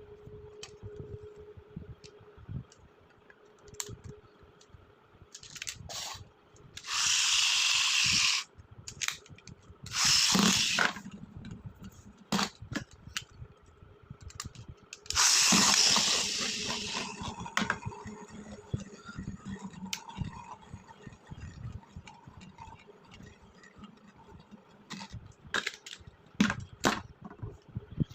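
Packaging being handled and opened, with scattered clicks and knocks throughout. Three loud hissing rips stand out, about a second each: roughly a quarter of the way in, a third of the way in, and just past halfway.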